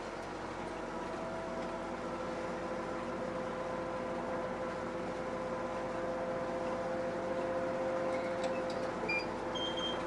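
Interior sound of a moving route bus: the engine and drivetrain give a steady hum with a whine over road noise, slowly growing louder. A few short high chirps come near the end.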